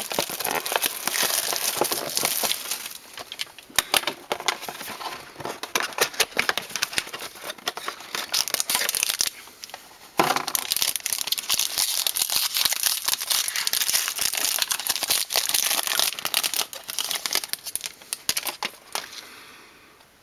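Crinkling and tearing of a trading-card pack wrapper as it is ripped open and handled, with a short pause about halfway through, dying away near the end.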